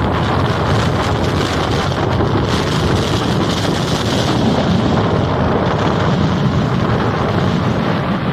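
Rough sea surf breaking and washing steadily, mixed with strong wind buffeting the microphone.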